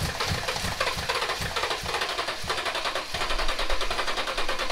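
Toyota 3UR-FE 5.7-litre V8 turning over on its starter motor without catching: a fast, even cranking rhythm, with uneven low thumps in the first couple of seconds. The engine seems not to be getting fuel.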